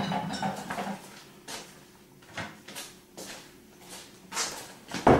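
Rummaging in a kitchen cupboard: scattered light knocks and clinks as bottles and jars are moved about, with a louder knock near the end.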